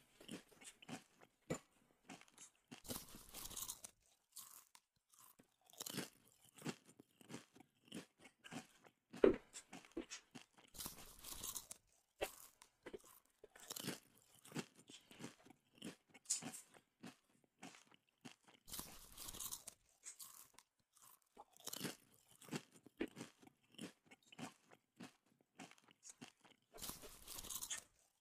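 A person chewing and crunching chicken feet, with many short, irregular crisp crunches. A few longer, breathier sounds come about every eight seconds.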